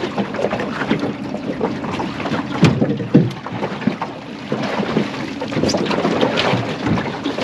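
Wind on the microphone and water around a small aluminium boat, over the low steady hum of the idling outboard motor, with two sharp knocks about two and a half and three seconds in.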